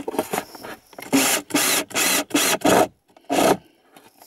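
Cordless drill-driver driving a screw into a shelf board in short trigger bursts: a quick run of five bursts, then one more after a brief pause.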